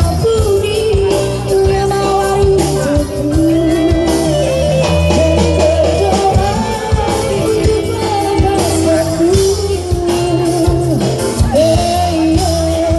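Live jaranan campursari music: a singer's wavering melody over steady drumming and a sustained low bass.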